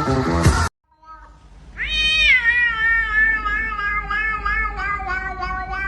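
Pop music cuts off abruptly under a second in. About two seconds in, a cat starts one long, drawn-out, crying meow that wavers and slowly falls in pitch.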